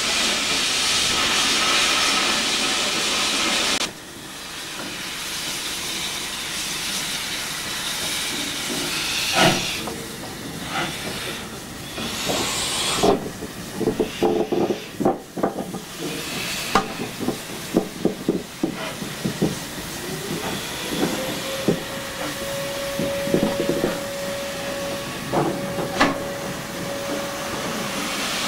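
Steam locomotive hissing steam steadily; the hiss drops away suddenly about four seconds in. Then a run of sharp metallic clanks and knocks, and in the last third a tone slides up and holds steady.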